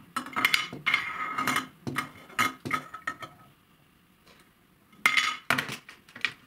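Hard plastic stacking-game pieces clacking and clattering on a table as they are handled with ribbed plastic pop-tube 'monkey arms'. A dense run of knocks and clicks stops briefly near the middle, then one more short flurry.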